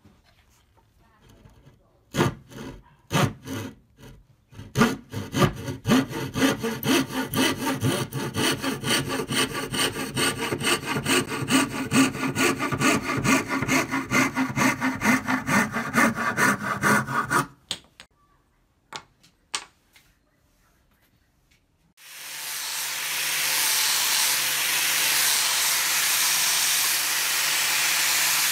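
A scroll saw's thin blade cutting a curve through a wooden board in rapid, regular strokes, stopping after about seventeen seconds. After a short pause, an angle grinder fitted with a sanding disc starts and runs steadily with a loud hiss.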